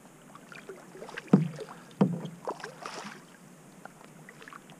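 Kayak paddle being handled against a plastic kayak: two sharp knocks on the hull, the louder about a second in and the next at two seconds, followed by water splashing and dripping off the paddle.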